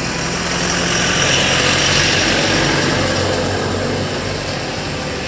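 Rain falling, a loud steady hiss that swells about two seconds in and then eases, over a low steady hum.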